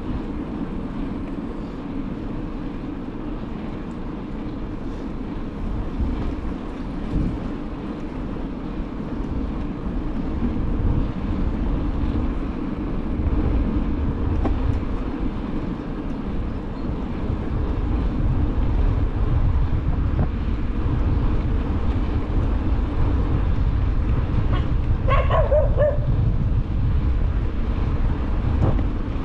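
Steady low wind noise on the microphone of a camera riding along a paved street on a bicycle, getting louder in the second half. Near the end a dog barks briefly.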